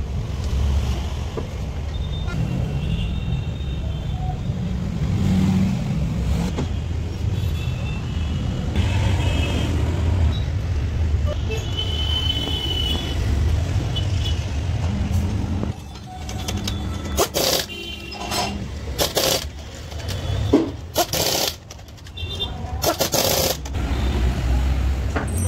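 A run of sharp metal clanks in the second half as the wheel nuts are done up on the alloy wheel and the trolley jack is lowered, over a steady low rumble of street traffic.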